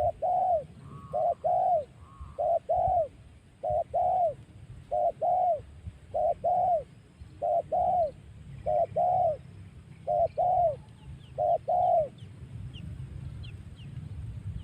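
A dove cooing in a steady series of two-note coos, a short note followed by a longer arched one, about one coo a second, stopping about twelve seconds in. Faint brief chirps from another small bird follow near the end.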